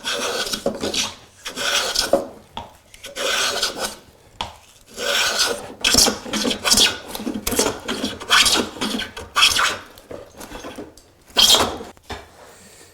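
A hand tool scraping across wood in repeated strokes, about a dozen rasping passes, each under a second with short pauses between, as a wooden part is worked down.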